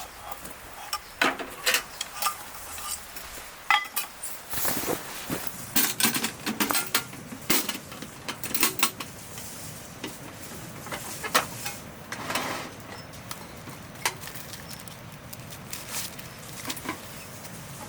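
Eating utensils clinking and knocking against bowls and dishes at irregular intervals, with a few short scrapes.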